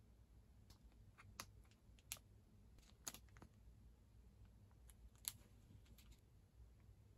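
Faint crinkles and clicks of thin plastic amenity packets being handled: a handful of brief sharp ticks spread irregularly over a very quiet background, the sharpest about two, three and five seconds in.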